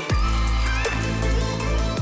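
Background electronic music with a heavy, sustained bass line and a few drum hits.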